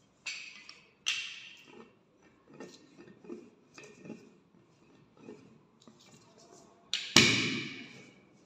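Wooden rolling pin knocking down on the table and rolling back and forth over a cloth-covered slab of clay to thin it, each stroke a soft rumble. There are two sharp knocks in the first second and a louder knock about seven seconds in.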